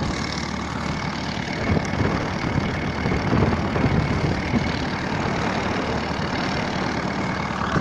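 A boat's engine running steadily while the boat is underway: a constant low hum with a faint steady whine above it.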